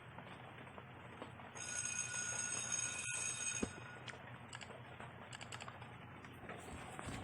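A short steady high ringing tone with overtones, then a run of irregular light clicks like typing on a computer keyboard.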